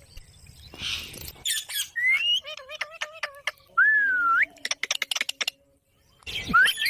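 Pet parrot calling: whistled notes that glide up and down, short squawks and a quick run of clicking chatter, with a brief pause before a loud call near the end.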